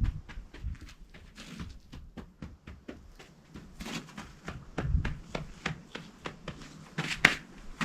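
Irregular taps, scrapes and rustles of hand work with a few dull thumps, as of soil and tools being handled, with a louder sharp click a little after seven seconds.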